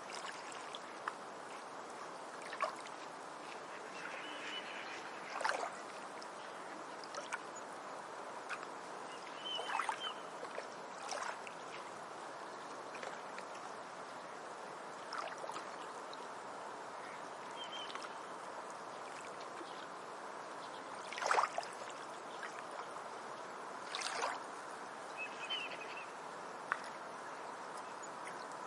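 Forest stream running steadily, with brief louder splashes every few seconds. A few short high chirps sound over it, about four times.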